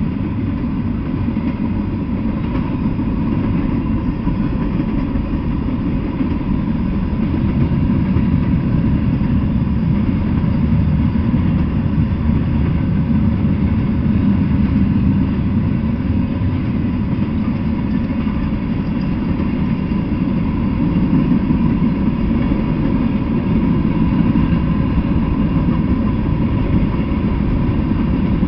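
Freight train cars rolling past on the rails: a steady, continuous rumble of wheels and cars.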